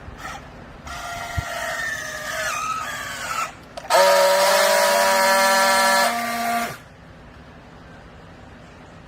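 A hydraulic clothes baler's machinery gives a wavering, pitched whine that shifts in pitch. About four seconds in it turns to a loud, steady, buzzing whine for nearly three seconds, which then cuts off abruptly.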